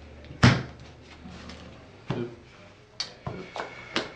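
Sharp taps and knocks of trading cards being set down and handled on a tabletop, about six over four seconds, the loudest about half a second in and several close together near the end.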